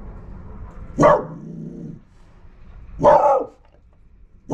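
Mini goldendoodle barking three times, short sharp barks with pauses of one to two seconds between them.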